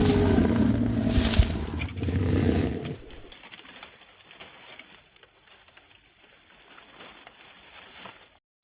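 Low animal growl, rumbling for about three seconds, then fading into quiet jungle ambience with faint, steady high-pitched insect-like tones.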